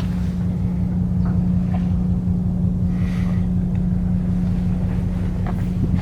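Engine running steadily: a low rumble with a constant hum and a few faint ticks.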